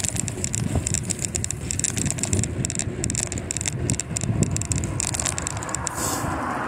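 Wind buffeting the microphone during a bicycle ride, over a low tyre rumble, with frequent small clicks and rattles from the bike. A rushing hiss builds near the end.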